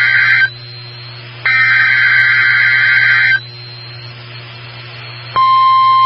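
NOAA Weather Radio Specific Area Message Encoding (SAME) header: screeching digital data bursts, one ending just after the start and another lasting about two seconds, followed near the end by the steady 1050 Hz warning alarm tone. These mark the start of a new alert broadcast.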